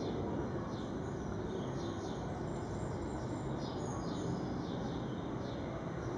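Steady low outdoor background rumble, with a bird chirping faintly over it in short falling notes about every half second to a second.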